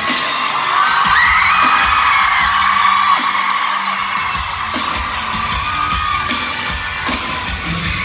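A live pop-rock band playing amplified guitars and drums in a concert hall, with a singer's voice over it. The crowd is screaming and singing along close to the phone's microphone.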